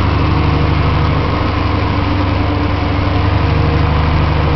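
Vehicle engine running steadily, heard from inside the cab while driving, with a constant low hum.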